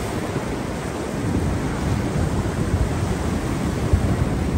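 Wind rumbling steadily on the microphone over the wash of ocean surf.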